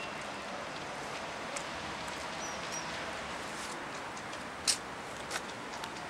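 Steady rain falling, with scattered sharp raindrop ticks on nearby hard surfaces and one louder tap a little before five seconds in.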